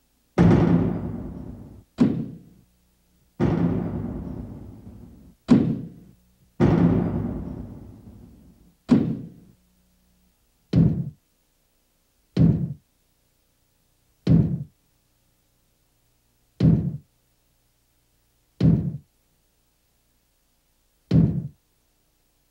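A run of single low drum hits. The first three each ring on and fade over a few seconds, each followed by a short hit. Then come six short, dry hits about two seconds apart, keeping time with a cut-out shape flopping over as it rolls.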